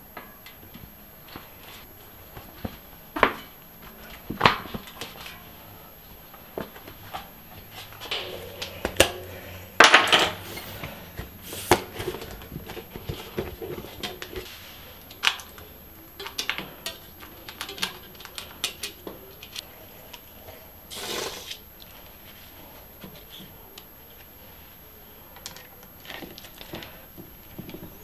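Irregular small metal clinks, clicks and knocks of bicycle parts and hand tools being handled and set down on a workbench during assembly. The loudest knocks come about ten seconds in.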